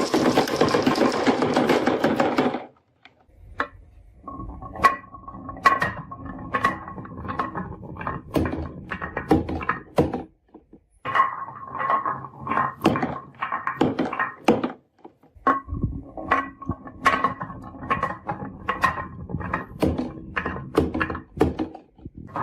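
Marbles rolling and clacking down a wooden marble run: a dense rattle that stops after about two and a half seconds, then, after a short pause, a long run of sharp clicks and knocks over a steady rolling ring.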